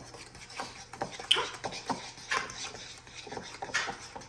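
A fork stirring a thick brown-sugar-and-butter mixture in a bowl, making a run of irregular scrapes and taps against the bowl.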